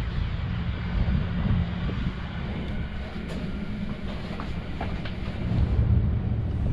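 Steady low rumble of a motor yacht's engines running at low power during slow docking manoeuvres, with a few faint clicks in the middle.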